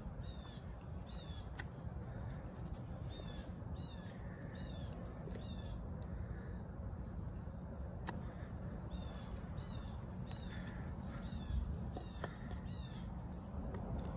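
D2-steel fixed-blade bushcraft knife carving a point on a green wood stake, with soft shaving strokes and a few sharp ticks of the blade on the wood. Over it, a bird calls again and again in short downward chirps.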